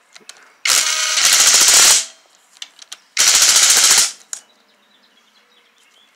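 Impact wrench hammering a bolt tight through a socket extension, in two bursts of about a second each, the second shorter.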